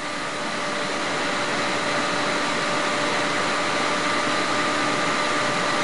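Steady whooshing background noise with a few faint steady hum tones, growing slowly a little louder.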